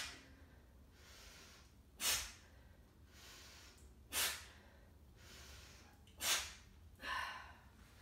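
A woman breathing hard through pursed lips: four sharp, hissing exhales about two seconds apart, one with each dumbbell press, with softer inhales between them and a softer voiced breath near the end. Each exhale is forced out as if through a straw, building pressure in the abdomen to brace for the press.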